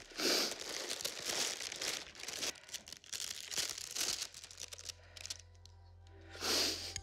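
Clear plastic flower wrapping and a paper bag crinkling and rustling in a run of bursts as bouquets are handled, with one more burst near the end. Soft music fades in under it in the second half.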